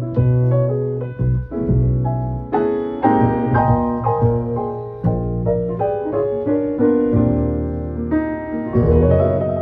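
Live jazz: acoustic piano playing a run of notes over a plucked upright double bass line.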